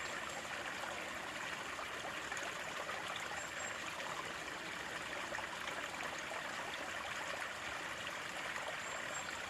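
Running water flowing and trickling steadily, an even, unbroken rush of splashing water.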